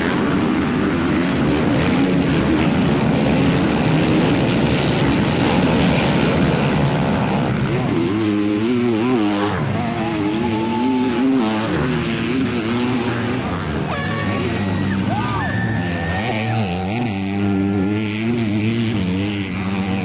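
Several dirt bike engines revving hard as riders pull away through deep muddy ruts. There is a dense roar at first, then from about eight seconds in the engine notes rise and fall as the throttles are worked.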